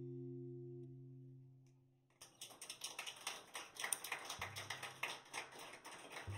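An acoustic guitar's last chord rings and fades out. About two seconds in, a small audience starts clapping.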